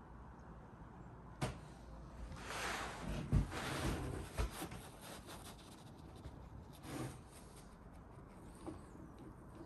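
Metal engine parts being handled on a wooden workbench: a sharp click, then a couple of seconds of scraping and rustling with a knock in the middle, and another short scrape later on.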